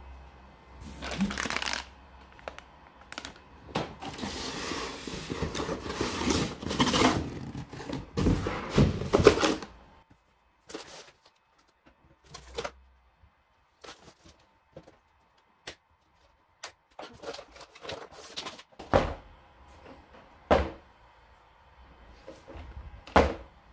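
Cardboard packaging scraping and rustling as a toy-grade RC monster truck is slid out of its box and cardboard insert. After that come scattered knocks and thuds as the cardboard pieces and the truck are handled and set down on a wooden table.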